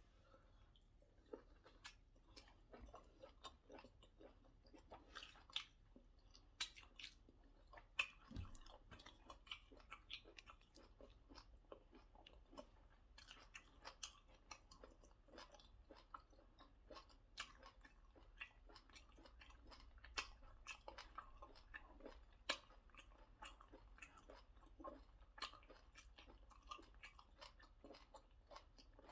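Close-up chewing of soft white starch and egusi soup: a steady run of quick, irregular wet mouth clicks.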